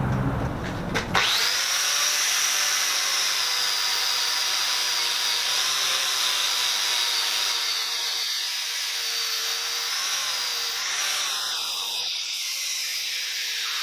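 Power grinder starting about a second in and running steadily with a high whine over a hiss, grinding the faces of a forged wrought iron hammer head.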